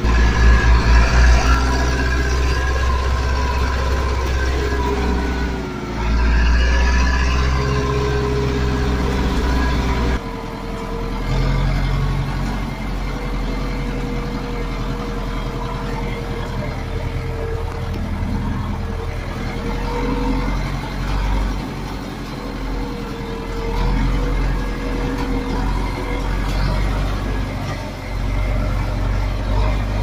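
Zetor 6340 tractor's diesel engine running under load, heard from inside the cab. About ten seconds in, the engine note drops and the sound gets quieter.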